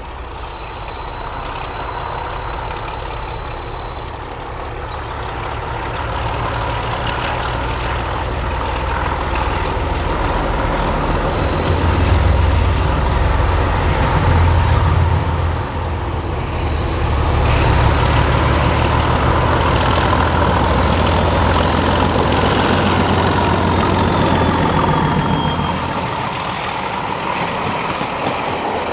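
Class 31 diesel locomotive 31430, its English Electric V12 engine running under power, growing louder over the first dozen seconds and staying loud after a brief dip about halfway through, with a high whistle gliding upward in pitch over it.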